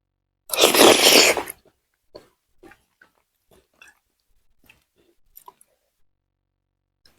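Close-up eating sounds: a loud, noisy mouthful sound lasting about a second, starting about half a second in, then soft chewing and mouth clicks.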